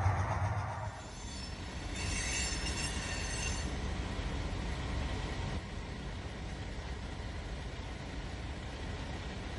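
HO scale model freight cars rolling past on the track, a steady rolling rumble of wheels on rail. About two seconds in there is a high-pitched wheel squeal lasting a second or so. At the very start a louder hum fades out about a second in.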